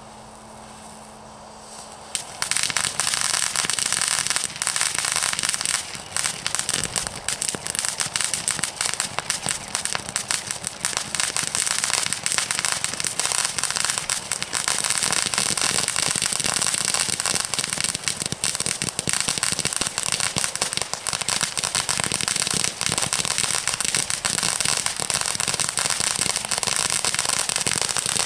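Dancing Diamonds firework fountain going into its crackling finale. After about two seconds at a quieter level it breaks suddenly into loud, dense, continuous crackling that holds steady.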